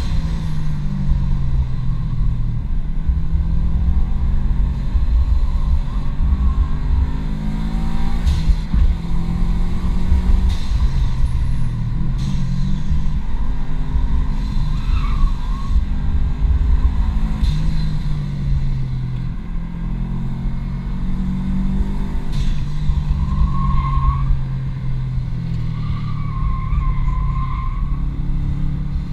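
2005 Subaru WRX wagon's turbocharged flat-four engine driven hard, the revs climbing and dropping again and again through gear changes and corners. Tires squeal briefly about halfway through and for longer near the end.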